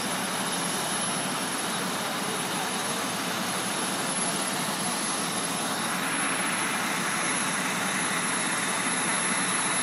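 Fire trucks' diesel engines running: a steady engine noise that grows a little louder about six seconds in, as the aerial ladder truck gets under way.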